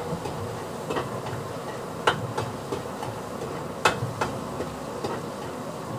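A cooking utensil stirring in a pot on the stove, with a few sharp, irregular knocks as it strikes the pot's side.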